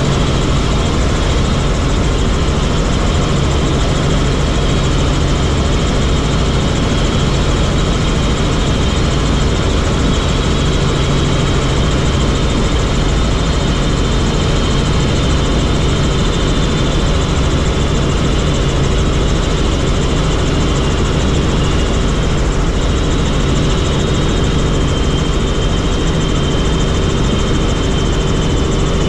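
Helicopter in flight: loud, steady drone of the rotor and engine, with a constant low hum and a thin high whine over it.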